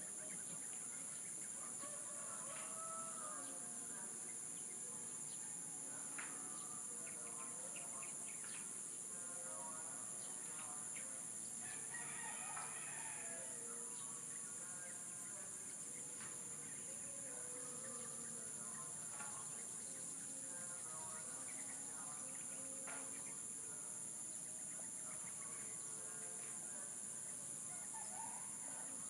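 Roosters crowing several times, with chicken clucks and other bird calls, over a steady high insect drone.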